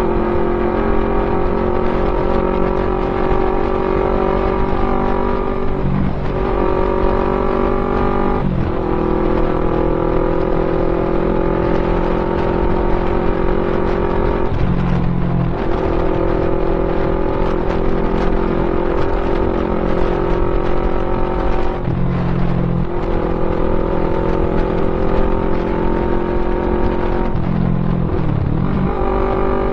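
Yamaha MT-03 motorcycle engine running through an aftermarket full-system exhaust, holding a steady note that breaks off and picks up again about five times.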